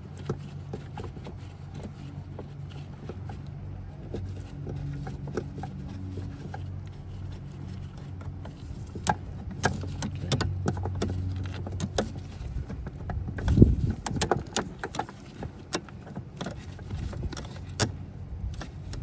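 Metal clinks and knocks of a wrench working the nuts and brake line fittings of a brake master cylinder, scattered through the second half with one louder knock about two thirds in, over a steady low hum.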